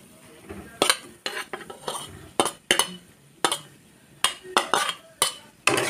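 A steel spoon scraping and knocking against a steel plate and a kadhai as cooked macaroni is pushed off the plate into the pan: about a dozen sharp clinks and clanks at irregular intervals.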